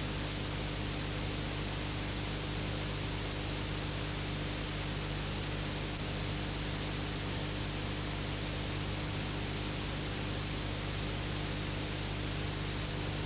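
Steady hiss with a low electrical hum and nothing else: the noise floor of an old film soundtrack with no recorded sound.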